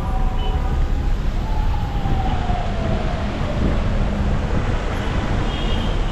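Road traffic noise: a steady rumble of vehicles, with one falling tone from about a second and a half in.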